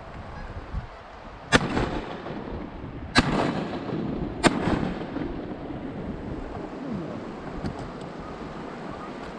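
Three shotgun shots, about a second and a half apart, each a sharp bang with a short tail.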